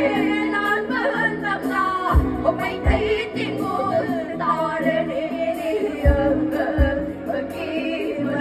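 Live band music with a woman singing into a microphone over the accompaniment, and a few heavy low drum hits.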